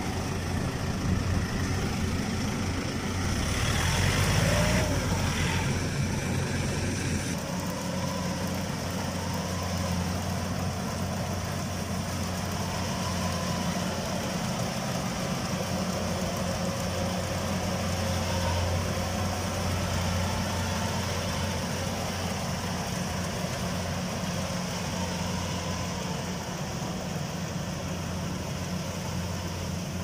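Diesel engines running steadily. A Yanmar tractor hauling a loaded trailer is louder and rougher for a few seconds. After an abrupt change about seven seconds in, a rice combine harvester runs steadily as it works the field.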